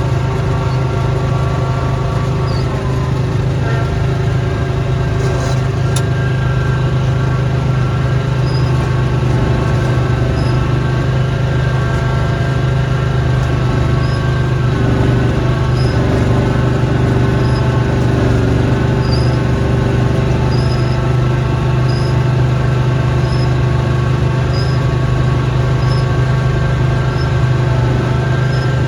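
Snowblower engine running steadily under load, with a strong low hum. A faint high chirp repeats about every second and a half through the second half.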